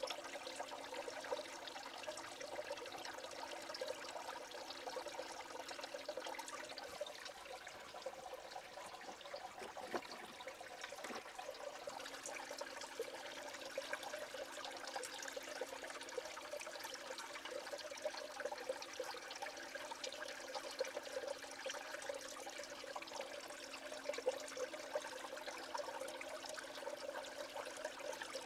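Water swirling and splashing in a Blue Bowl gold concentrator, fed by a small submersible bilge pump, with a steady low hum underneath that fades for a few seconds about a third of the way in.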